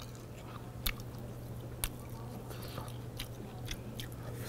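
A person chewing and biting into crisp-fried salt-roasted pork ribs, with a few sharp clicks, the loudest about one and two seconds in, over a steady low hum.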